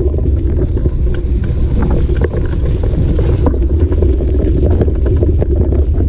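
Riding a bike down a rough gravel track: steady wind rumble on the microphone, with the tyres and frame rattling and clattering over loose stones.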